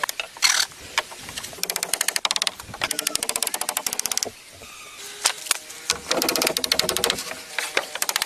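Rapid tapping in bursts of many quick, sharp strokes a second, broken by short pauses.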